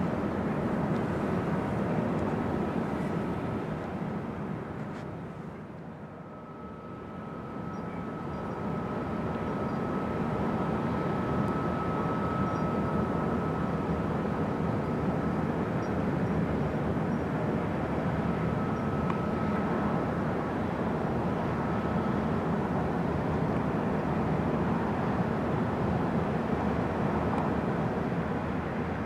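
Steady low diesel engine rumble of a harbour tug towing a barge across the water, with a faint thin steady whine through the middle stretch.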